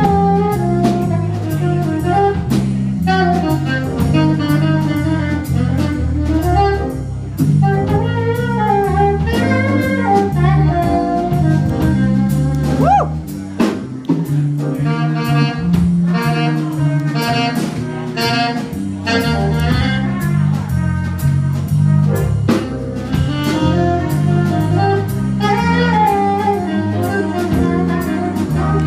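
Live jazz combo playing: saxophone and a brass horn over keyboard and drum kit, with a line of stepping low notes and steady cymbal and drum strokes.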